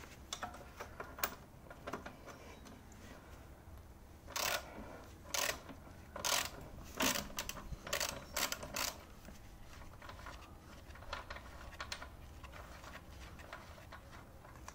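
Socket ratchet clicking as it is worked back and forth on a rusty suspension crossmember bolt, in about seven short bursts, then fainter clicks and taps of tools on metal. The bolt is coming undone easily.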